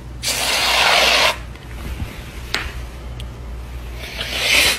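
Aerosol can hissing for about a second as it sprays foam into an open palm. A shorter, rising rustling hiss follows near the end.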